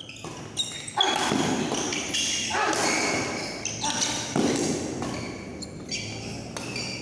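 Badminton rally: sharp racket strikes on the shuttlecock and squeaking shoes on the court, with voices over it in the middle.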